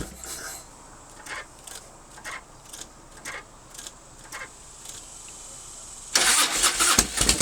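Electric starter cranking the 1997 Harley-Davidson Fatboy's Evolution V-twin, which does not fire; the carburetor float bowl is dry after the bike sat a month. Cranking stops at the start, there is a pause of about six seconds with faint regular clicks, then cranking resumes.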